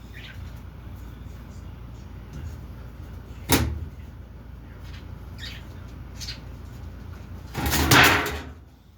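Knocks and scraping from a washing machine's panels and parts being handled during repair: one sharp knock, then near the end about a second of louder scraping clatter.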